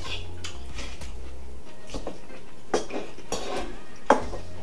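Metal cutlery clinking and scraping against bowls during eating, with about eight short, scattered clinks.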